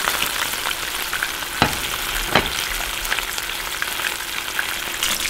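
Battered catfish fillet frying in shallow oil in a skillet: a steady sizzle with scattered crackles, and a couple of sharper pops about one and a half and two and a half seconds in.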